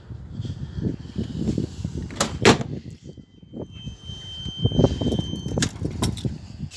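Driver's door of a 1996 Mitsuoka Galue being unlatched and swung open: a sharp loud latch click about two and a half seconds in and two more clicks near the end, over low rumbling handling noise.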